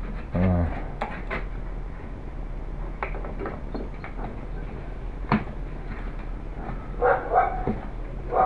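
Scattered clicks and knocks from handling a model glow engine's ducted-fan test stand; the engine is not running. A short low vocal sound comes about half a second in, and a few brief higher vocal sounds come near the end.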